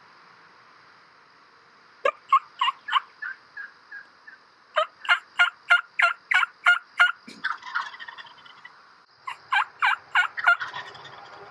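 Turkey yelping in three runs of evenly spaced notes. The first is four loud notes trailing off into softer ones, then a longer run of about eight quick loud notes, then four more near the end.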